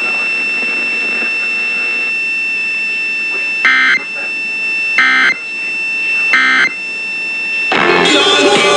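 Three short bursts of Emergency Alert System (SAME) digital data tones, about a second and a half apart, the end-of-message code that closes a broadcast weather warning, heard over a steady high-pitched whine. Near the end, louder music starts.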